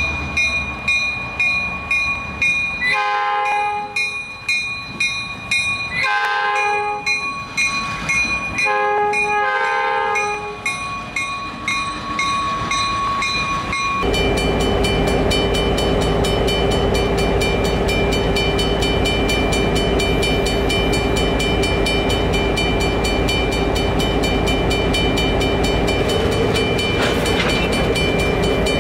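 Locomotive bell ringing in regular strokes while the diesel locomotive's air horn sounds several chime blasts of about a second each. Partway through, the sound changes to an EMD SD38's diesel engine running steadily.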